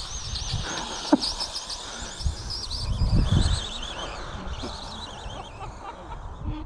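Small birds chirping and twittering steadily from the hedgerow, over low gusts of wind buffeting the microphone, with one quick falling whistle about a second in.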